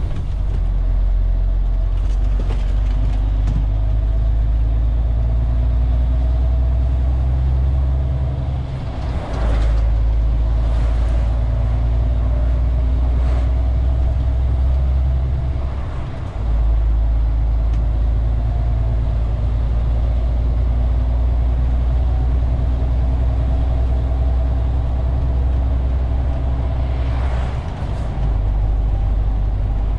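MAN TGX 470 truck's straight-six diesel engine and road noise heard inside the cab while driving, a steady low drone. The low engine sound dips briefly three times, about a third of the way in, around the middle and near the end.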